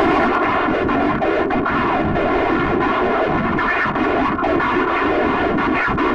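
A loud, steady, distorted drone: a dense hiss layered with a stack of steady tones, holding on without a break.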